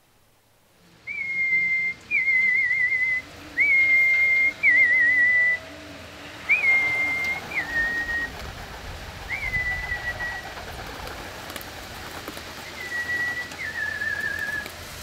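Someone whistling a repeated two-part call: a held high note that starts with a quick upward flick, then a wavering trill a little lower. The call comes several times, with longer gaps toward the end.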